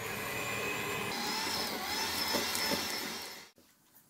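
Electric hand mixer running steadily, its beaters whipping cream cheese with sweetened condensed milk in a bowl; the motor's whine cuts off about three and a half seconds in.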